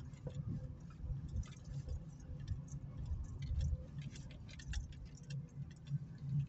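Low engine and road rumble inside the cabin of an Opel Meriva driving slowly, with irregular light clicks and ticks over it, about three or four a second.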